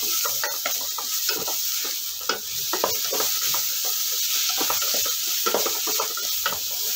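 Onions, curry leaves and ginger-garlic paste sizzling in hot gingelly oil, stirred with a wooden spatula that scrapes and knocks against a stainless steel pot in quick, irregular strokes over a steady sizzle. The paste is being fried until its raw smell cooks off.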